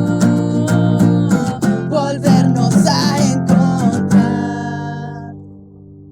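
The end of a song: strummed acoustic guitar with a singing voice, closing on a final chord about four seconds in that rings and fades away.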